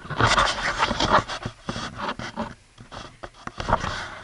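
Scratching and rubbing noise on a handheld camera's microphone as the camera is handled, in loud, irregular bursts that thin out near the end.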